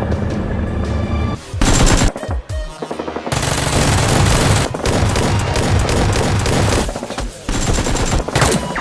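Bursts of rapid automatic gunfire in three stretches, the longest about three and a half seconds, after background music in the first second or so.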